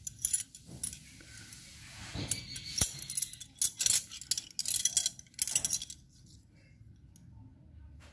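Steel combination wrenches from a set clinking against one another as they are handled and laid down. The sharp metallic clinks come in irregular clusters, densest in the middle, and stop about six seconds in.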